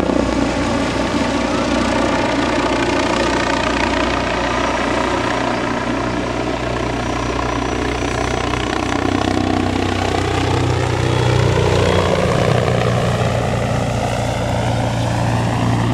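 Agusta A-129 Mangusta helicopter in flight: its twin turboshaft engines whine over the steady beat of the rotor, the tones rising in pitch over the second half.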